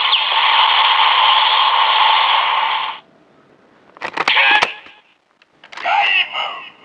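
Electronic sound effects from the DX Zikan Girade toy weapon's small speaker, with the Gaim Ridewatch fitted, cutting off about three seconds in. Then come sharp plastic clicks as the blade is flipped over into sword mode, and a short electronic call from the speaker near the end.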